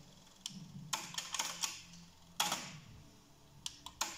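Sharp mechanical clicks and clacks from an AIWA AD-WX929 cassette deck's transport buttons and tape mechanism as it is operated: a few single clicks, a quick cluster, and one louder clack with a short ring, over a faint low hum.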